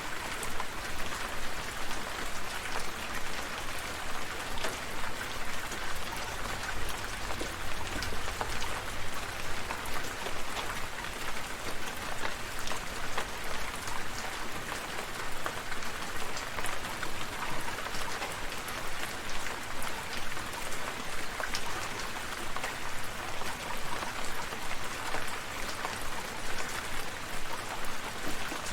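Steady rain falling, with many individual drops ticking close by. A low rumble underneath fades out about halfway through.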